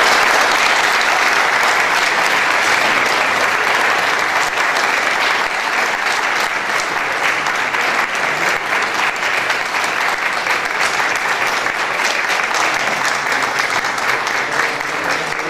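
A large audience applauding in a long, steady round of clapping that eases slightly near the end.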